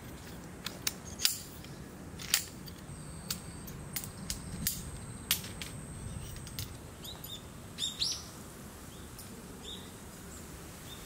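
Sectioned metal tent poles clinking as they are fitted together and handled: sharp metallic clicks about once a second through the first half. A few short bird chirps follow near the end.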